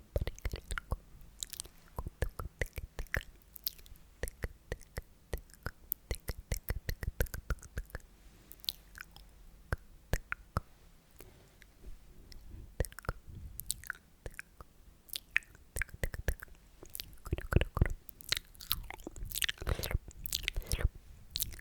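Sticky, wet mouth sounds made close to the microphone: a run of tongue and lip clicks and smacks, several a second, thinning out for a few seconds midway and picking up again toward the end.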